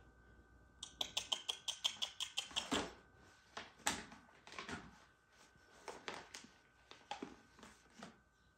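Gold paper gift bag crinkling and rustling as a cat paws at it and pushes its head inside, with a quick run of sharp crackles from about one second in until three seconds, then scattered crinkles.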